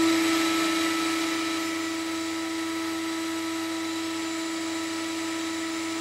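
Homemade central vacuum unit's suction motor running steadily: a constant whine over a rush of air. It eases a little in level over the first couple of seconds, then holds.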